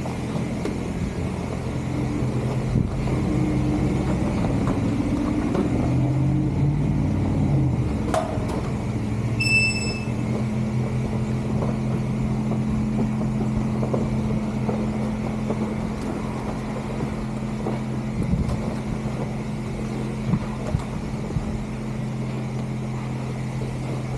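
Car engine running steadily, with a short electronic beep about nine and a half seconds in.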